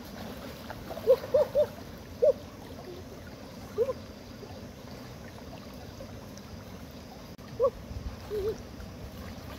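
Shallow river water flowing steadily. Over it, short pitched calls that rise and fall, each standing out above the water: three in quick succession about a second in, then single ones and a pair scattered through the rest.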